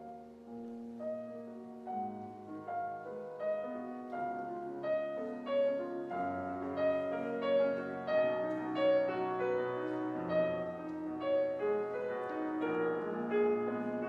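Grand piano played solo: a classical piece with a singing melody in the middle register over held chords and bass notes, growing fuller and louder over the first half.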